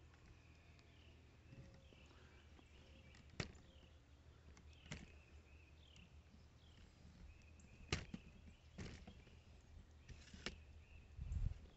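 Quiet outdoor ambience with faint, repeated bird chirps over a low steady rumble. A handful of sharp clicks and knocks from handling the camera and walking, the strongest about eight seconds in, and a low thump near the end.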